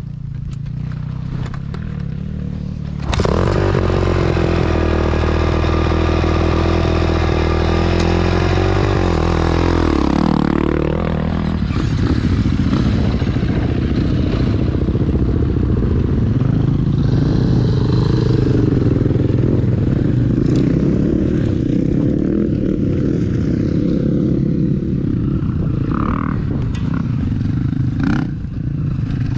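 Motorcycle engine running again after a repair to its ignition wiring. About three seconds in it is revved and held at a steady high pitch for several seconds, then it drops back about ten seconds in and keeps running steadily.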